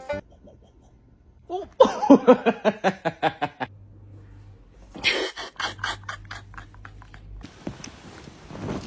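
A person laughing: a quick run of voiced ha-ha bursts lasting about two seconds, then a shorter, breathier laugh a few seconds later.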